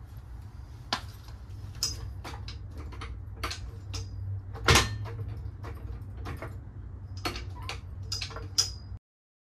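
Irregular metal knocks and clicks from a pickup's rear bumper and hitch receiver assembly, resting on a floor jack, as it is worked loose by hand. Some knocks have a brief metallic ring, and the loudest comes about halfway through.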